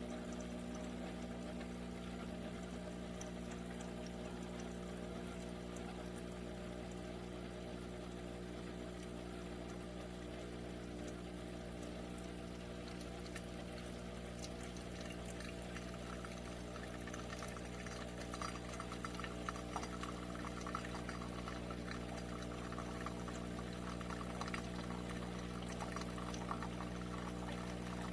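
Cuisinart SS-10P1 single-serve coffee maker running, its pump humming steadily. From about two-thirds of the way in, liquid streams and spatters into the cup.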